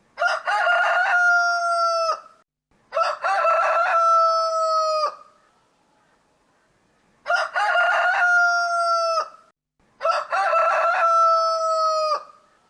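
Rooster crowing four times, each crow about two seconds long and ending in a long held note, with a longer pause in the middle before the last two.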